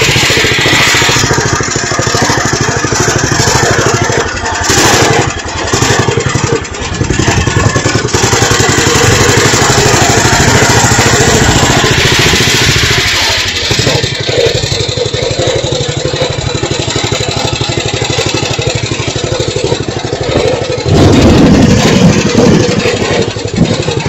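Small engine of a ride-on vehicle running as it is driven along, its level rising and falling, loudest near the end.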